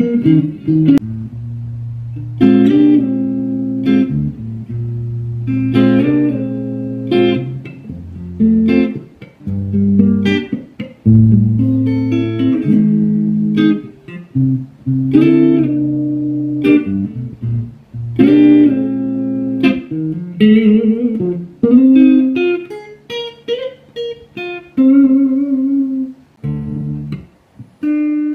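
Newly built solid-body electric guitar, the handmade "Gazelle", played fingerstyle: picked chords and melody notes ring over held low bass notes, in phrases with short pauses.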